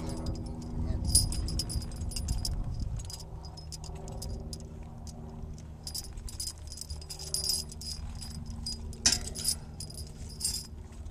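Metal harness and hitching hardware on draft horses jingling and clinking in irregular bursts, with one sharper clink about nine seconds in, over a low steady hum.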